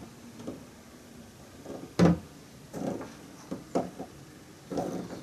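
Handling noises as a flashlight is moved against a plastic canister: one sharp knock about two seconds in, followed by a few softer knocks and rubs.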